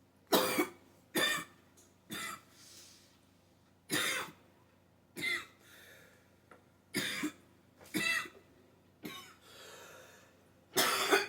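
A woman coughing in a long fit: about ten short, sharp coughs roughly a second apart, some coming in pairs, with some throat clearing among them.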